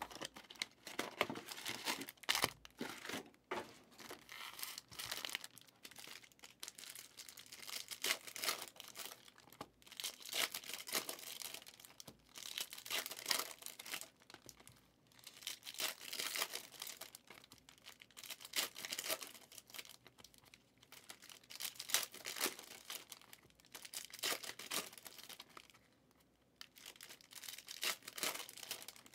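Panini Prizm football trading cards being handled and flipped through: a string of short crinkles and rustles as cards and their plastic slide against each other.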